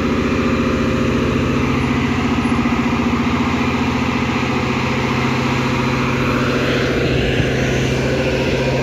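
Giant mining haul truck's diesel engine running steadily as the truck drives by, a deep, even engine hum.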